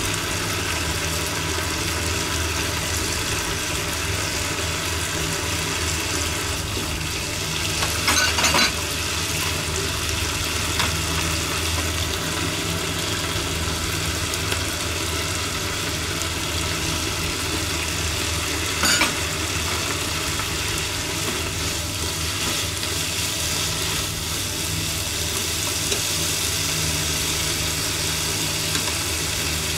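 Sliced green peppers sizzling as they are stir-fried in a frying pan, over a steady low hum. A few sharp clicks of wooden chopsticks against the pan come about eight seconds in and again about nineteen seconds in.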